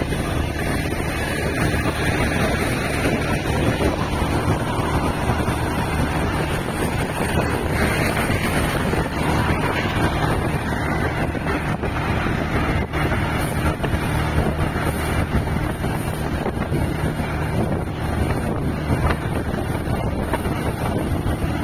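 Engine of the vehicle carrying the camera running steadily at cruising speed, with wind noise on the microphone.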